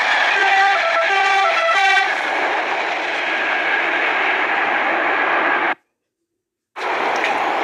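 Passing train's steady rolling noise, with a train horn sounding in short alternating notes during the first two seconds. The sound cuts out for about a second near the end, then a steady rumble resumes.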